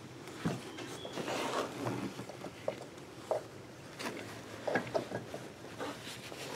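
Rustling and scattered small clicks and knocks of a gloved hand working in the cramped space behind a headlight housing, next to the plastic air filter box, while seating a new headlight bulb.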